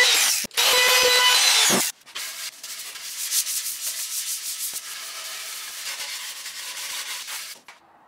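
A compact router with a quarter-inch roundover bit whines at a steady high pitch as it routes the edges of the wooden box. It cuts out briefly about half a second in and winds down with a falling pitch just before two seconds. Then sandpaper is rubbed by hand over the wood in quick back-and-forth strokes, stopping shortly before the end.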